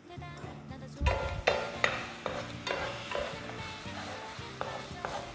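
Beaten eggs sizzling in a ceramic-coated Neoflam Fika frying pan with no oil, stirred and scraped around the pan with a spatula in irregular strokes. The sizzle and scraping start about a second in.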